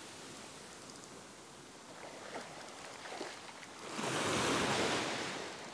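Ocean surf washing onto a sandy beach, with a wave surging up loudly about four seconds in and then falling away.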